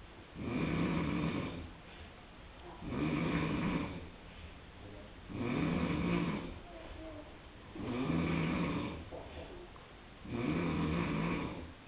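Bosch appliance (model SNV82155) making a rhythmic snoring noise: five snore-like pulses, each a little over a second long, repeating about every two and a half seconds.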